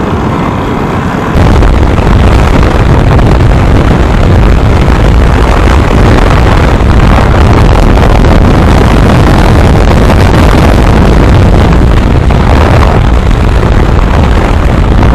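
Wind rushing hard over the microphone of a moving motorcycle, a 2024 Yamaha R15M, with the bike's engine and road noise underneath. The rush jumps louder about a second and a half in and then holds steady.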